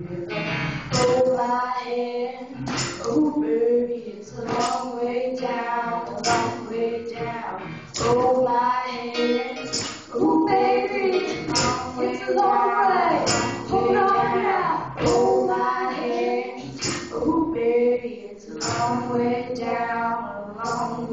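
Two girls singing a song into microphones on a stage, their voices amplified through the hall's sound system.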